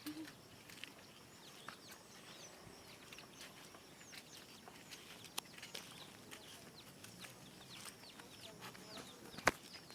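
Birds chirping with many short, high, falling calls, faintly, with a sharp click about halfway and a louder one near the end.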